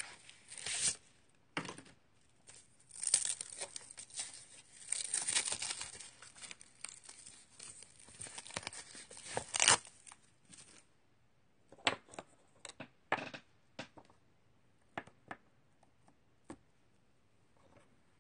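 Plastic stamp-set sheets and packaging rustling and crinkling as they are handled, with sharp tearing-like rustles, for about the first ten seconds. Then comes a string of light clicks and taps.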